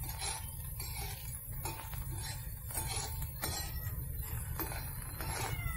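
A metal stirring utensil clinking and scraping against a metal tawa as bitter gourd slices are turned in shallow oil, in irregular taps.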